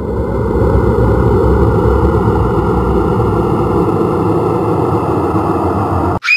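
A loud, steady rumbling noise like a running engine, which cuts off abruptly near the end as a high-pitched scream begins.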